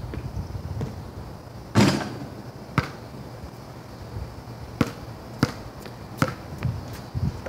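Basketball bouncing on a concrete driveway: about six separate, irregularly spaced knocks, the loudest about two seconds in, over a steady low rumble.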